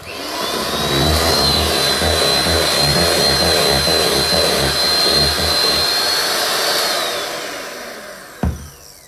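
Electric hand mixer with twin beaters whipping chocolate ganache in a stainless steel bowl. The motor whine rises as it starts, runs steadily, then winds down near the end, followed by a single sharp knock.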